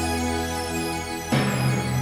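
Background music: sustained soft chords, with a louder chord coming in near the end.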